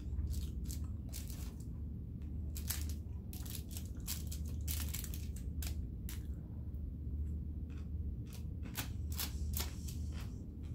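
Takeout food wrapping crinkling and rustling as it is handled, in quick runs of short crackles with pauses between them, over a steady low hum.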